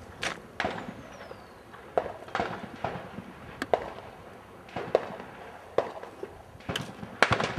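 Scattered gunshots from other shooters on the range, a dozen or so sharp pops at irregular intervals, some in quick pairs, heard at a distance.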